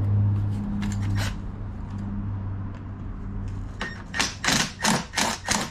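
Milwaukee cordless ratchet on a long extension loosening an intake manifold bolt: a steady motor hum that fades over the first two seconds, then a quick run of short buzzing bursts, about four a second, near the end.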